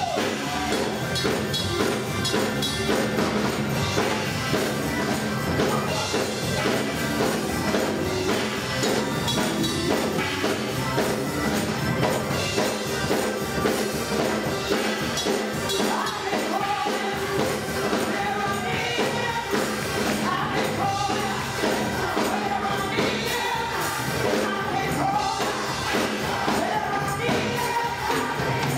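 Gospel choir singing with instrumental accompaniment and a steady percussion beat.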